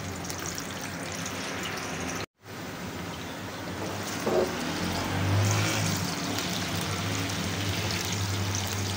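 Chopped red onions sizzling in hot oil in a frying pan, stirred with a spatula. The sound drops out briefly a little over two seconds in.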